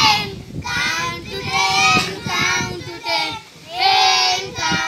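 Young children singing an English action poem together, in short sung phrases with held notes.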